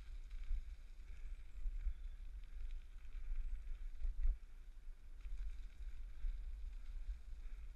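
Riding noise from a bicycle-mounted action camera: low, fluttering wind buffeting on the microphone over a steady hiss of tyres rolling on a gravel towpath, with a single knock about four seconds in.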